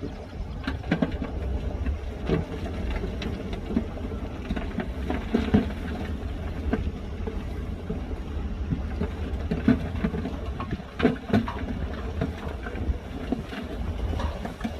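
Heavy earthmoving machinery working: a steady low diesel engine rumble with scattered clanks and knocks.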